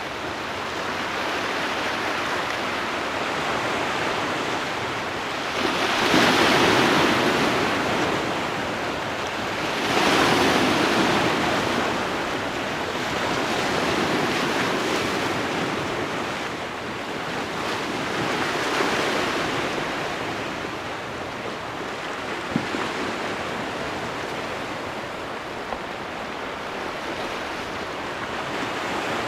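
Sea waves washing and breaking, with wind on the microphone: a steady rushing noise that surges loudest twice, about six and ten seconds in, then rises and falls more gently. A single short knock comes about two-thirds of the way through.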